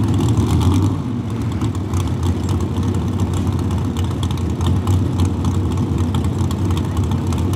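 Lifted '92 Chevy 2500 mega truck's engine idling at a steady, deep pitch while hitched to the pulling sled, before it launches.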